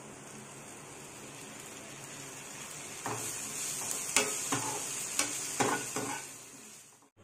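Chopped onions and tomatoes sizzling in oil in a nonstick frying pan. About three seconds in, a spatula starts stirring them, scraping and knocking against the pan several times.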